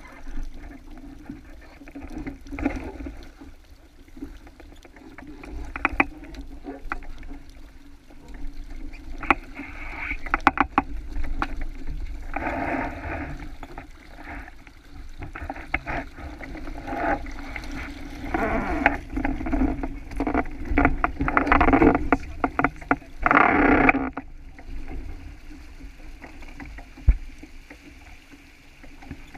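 Water rushing and splashing along a sailboat's hull under way, muffled, coming in irregular surges with many sharp clicks and knocks; the surges are strongest in the second half, then the noise drops off about five seconds before the end.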